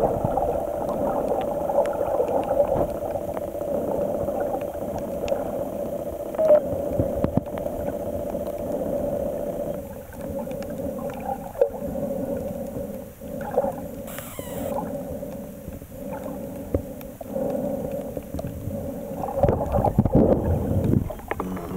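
Underwater ambience picked up by a camera below the surface: a steady low hum over a muffled wash of water, with scattered small clicks and a brief falling sweep partway through.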